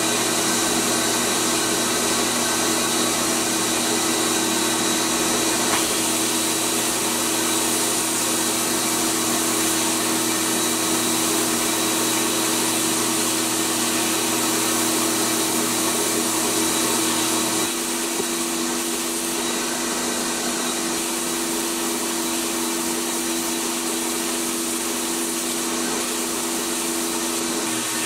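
A sandblasting cabinet's blast gun hissing steadily as abrasive is blasted onto a pressed-steel toy truck part, stripping the old paint down to bare metal. A steady hum runs underneath, and its lowest part drops away about two-thirds of the way through.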